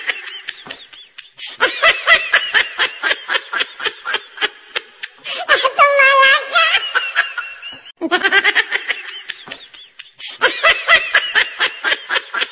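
High-pitched laughter in long runs of quick, evenly spaced "ha" pulses, with short pauses about 5 s and 10 s in, like a looped laugh sound effect.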